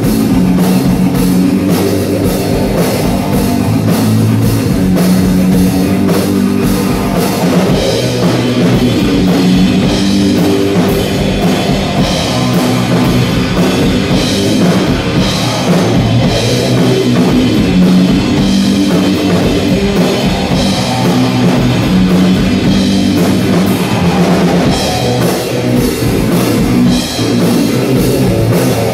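Live instrumental rock: an electric guitar plays heavy riffs over a full drum kit. From about eight seconds in, cymbal strokes land about every two seconds.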